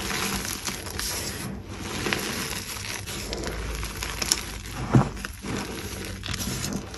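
Hands crushing and crumbling dyed gym chalk, a continuous crunching and crackling as the chunks break down into powder. A louder thump comes about five seconds in.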